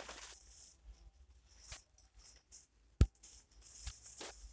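Soft rustling and scuffing of leafy undergrowth, in short scattered bursts, with one sharp knock about three seconds in.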